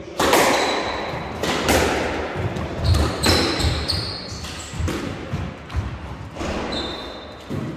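Squash rally: the ball is struck by rackets and smacks off the court walls, with a string of sharp hits spaced irregularly. Short high squeaks of sneakers on the wooden floor come in between, and the rally stops shortly before the end.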